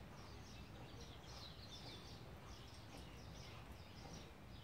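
Faint background birdsong: many short, quick chirps over a low, steady background noise.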